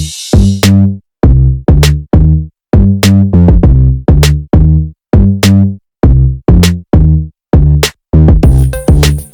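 Electronic music with a drum-machine beat: short, punchy, bass-heavy hits about three a second, with brief silences between them.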